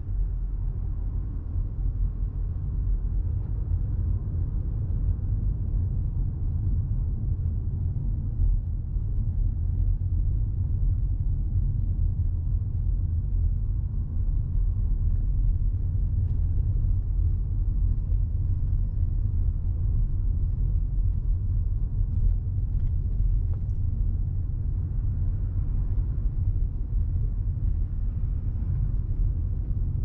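Steady low rumble of road and tyre noise inside the cabin of a moving Toyota Crown Athlete hybrid.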